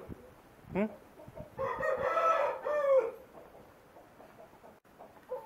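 Asil rooster crowing once, a crow of about a second and a half that starts about a second and a half in and trails off at the end, with a brief call just before it.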